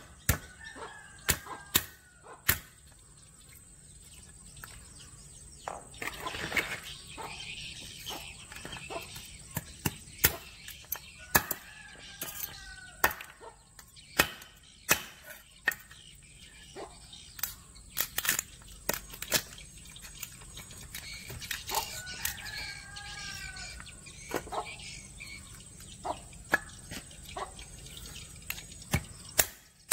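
A stone pounding and cracking crab claws and shells on a wooden cutting board, along with knife strokes on the board, heard as sharp, irregular knocks with uneven gaps between them.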